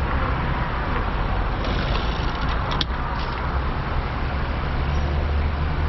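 A car engine idling, heard from inside the car as a steady low hum under a hiss, with a few light clicks about halfway through.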